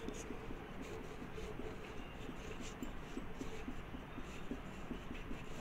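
Marker pen on a whiteboard drawing quick short strokes for rain lines, a run of faint strokes about two or three a second.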